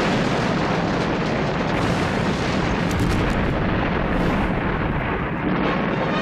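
A loud, steady roar that starts suddenly and holds without pause, with no clear pitch and no separate bangs.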